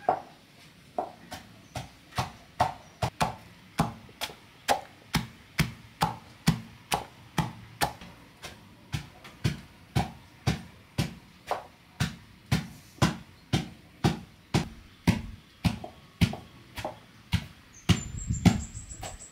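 Wooden pestle pounding a coarse seasoning mixture in an aluminium pot, a steady thud about twice a second.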